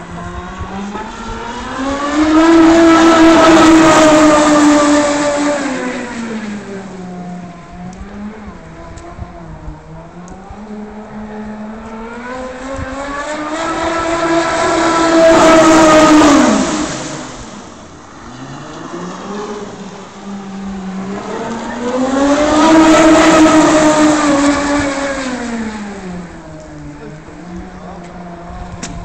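Electric RC racing catamaran driven by an E-MAX BL5345/8 brushless outrunner motor on 12S, through a flex shaft to a single propeller, making three high-speed passes. Each pass is a high whine that swells, rises in pitch, holds and then falls away, and the boat runs slower between passes.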